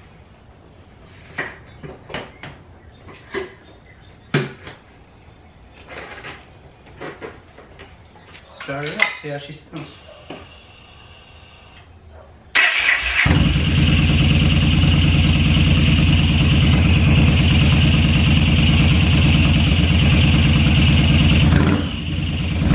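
Knocks and clicks as a motorcycle seat is fitted back in place. Then, about twelve and a half seconds in, the Yamaha Star Stryker's V-twin starts and runs loudly and steadily, with one hell of an intake noise through its new Kuryakyn air filter. This is its first start on a freshly reflashed ECU. The level dips briefly near the end.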